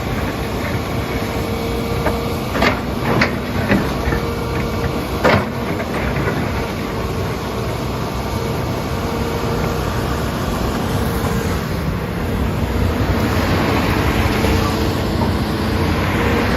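Hitachi Zaxis 210 excavator running steadily, with a steady whine. A few sharp knocks come a few seconds in, and the machine grows a little louder near the end.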